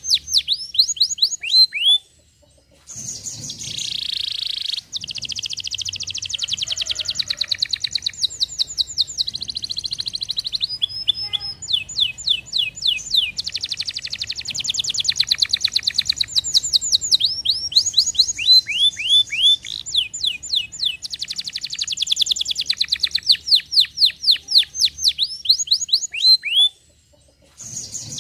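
Canary singing a fast song of rolling trills, each made of rapid downward-sweeping notes, with a short pause about two seconds in and another near the end.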